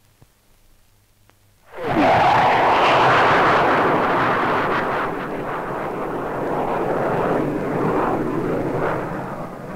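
Near silence, then about two seconds in the jet noise of a Hawker Hunter's single Rolls-Royce Avon engine arrives suddenly as the fighter passes low at over 700 mph. The noise stays loud and eases slightly near the end.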